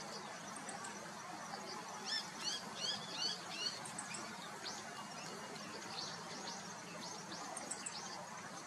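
Meadow bunting singing: a quick, varied phrase of high chirping notes about two seconds in, followed by a few scattered single notes, over steady background noise.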